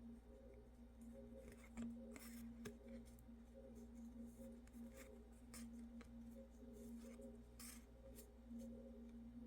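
Near silence: a faint steady electrical hum with a few soft, brief rustles and clicks scattered through.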